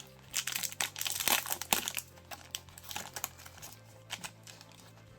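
Wrapper of a 1990s trading card pack crinkling as it is torn open and the cards are pulled out: a dense run of crackles over the first two seconds, then scattered quieter crinkles. Faint background music underneath.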